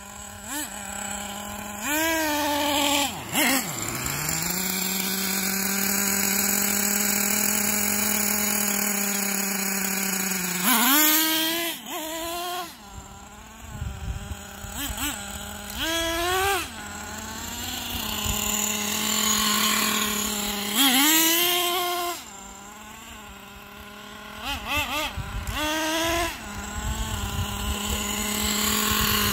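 Small two-stroke glow engine of a nitro RC truck running during break-in. Its pitch climbs in short bursts as the throttle is blipped, several times, with a long steady stretch from about four to ten seconds in.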